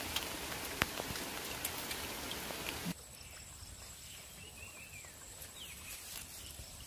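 Steady rain falling on floodwater, with a few sharp drop clicks. About three seconds in it cuts to a quieter stretch of the same rain, with a few faint high chirps.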